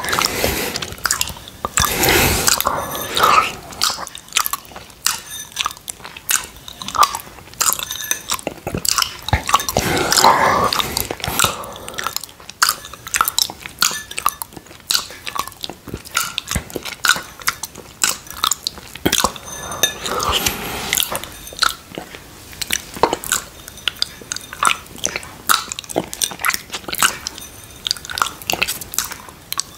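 Close-miked wet mouth sounds of a tongue licking creamy mango quark from inside a glass dessert coupe: many sharp wet clicks and lip smacks, with longer slurps about two seconds in, around ten seconds in and around twenty seconds in.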